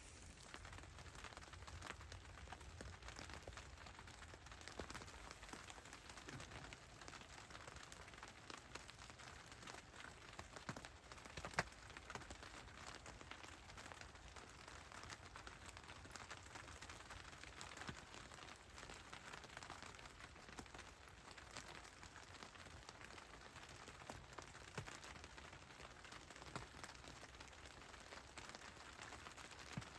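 Faint light rain pattering, with scattered small drip ticks and one sharper tick near the middle.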